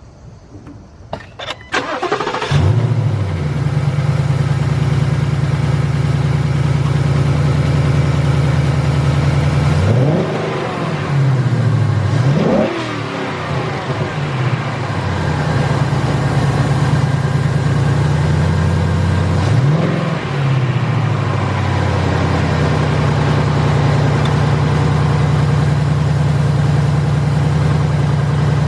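Ford Mustang GT's Gen 3 Coyote 5.0 V8, fitted with a freshly installed Airaid cold air intake, cranks and catches about two seconds in with a brief flare, then settles to a steady idle. It is revved three times, twice close together around the middle and once more shortly after, each time rising and falling back to idle.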